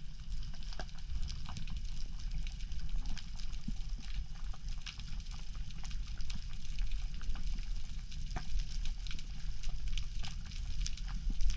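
Underwater ambience over a rocky sea floor: a steady low rumble of water with dense, irregular crackling clicks.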